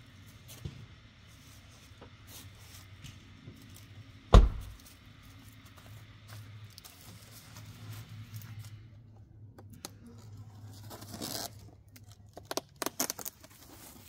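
One heavy thump about four seconds in, then cardboard scraping and packing tape tearing off a large cardboard box in several quick rips near the end.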